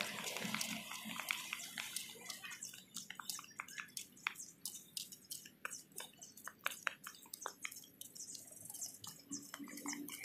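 Faint, irregular light slaps and clicks of footsteps in flip-flops on asphalt, growing busier a couple of seconds in.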